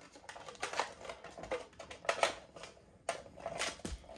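Irregular light clicks and rattles of handling a small oil-filled radiator heater: its power cord being unwound and the heater being tipped and moved.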